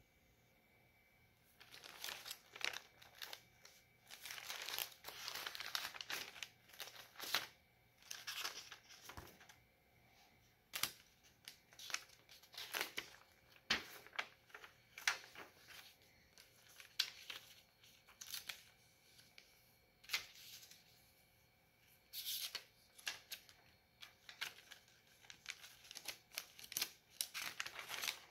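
Notebook pages turned by hand one after another: an irregular string of short paper rustles and sharp page flaps, the glued-in worksheet sheets crinkling as they turn.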